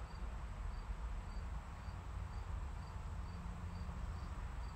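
Faint cricket chirping, short high chirps repeating evenly about twice a second, over a low steady rumble.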